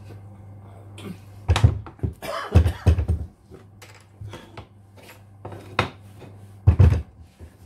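Slate clock case being handled and set down on wooden blocks on a workbench: several loud knocks and thuds, in a cluster early on, another pair shortly after, and one more near the end, with smaller clicks and scrapes between, over a steady low hum.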